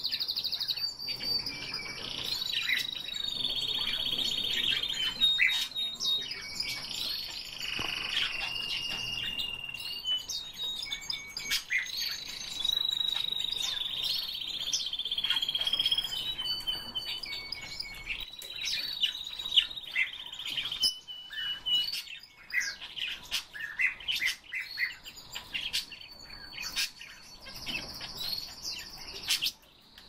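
Several cage songbirds singing and chirping together. Clear whistled notes are held at a steady pitch, overlapping with quick chirps and calls.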